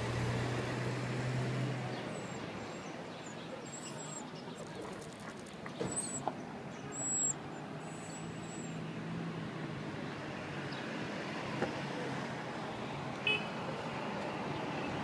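Outdoor background noise with a low motor hum, strongest in the first two seconds and again about eight seconds in, and a few short clicks.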